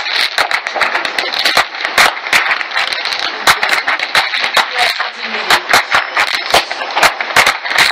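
Fireworks and firecrackers going off across the city: an irregular run of sharp bangs and cracks, several a second, over a steady crackling hiss.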